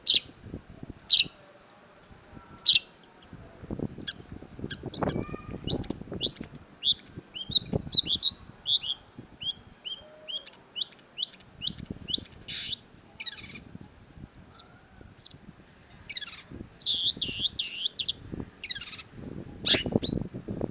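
Long-tailed shrike singing: a few sharp, separate notes, then from about four seconds in a fast, varied chatter of high chirps broken by harsh, scratchy notes.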